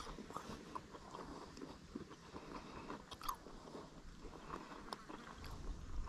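A person chewing crisp flour-coated calamari: faint, irregular crunches.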